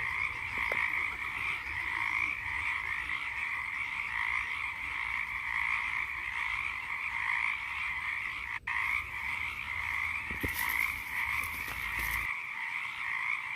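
A dense chorus of many frogs calling at once, a steady unbroken din that drops out for an instant about two-thirds of the way through. Near the end comes a short scratchy noise over it.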